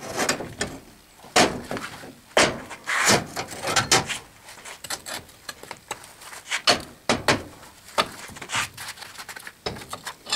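Metal molding flask, steel tongs and a fresh aluminum spanner-wrench casting knocking and clattering as the casting is broken out of its sand mold. About a dozen irregular, separate knocks, with the sharpest one near the end.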